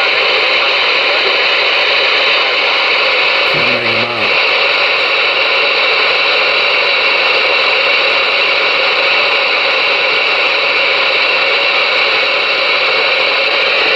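Galaxy DX-98VHP CB radio receiver hissing steadily with loud static through its speaker while it listens for a reply to a radio check. About four seconds in, a brief faint snatch of a voice breaks through the noise.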